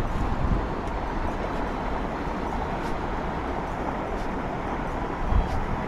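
Strong wind rushing over the microphone, with low buffeting rumbles just after the start and again about five seconds in.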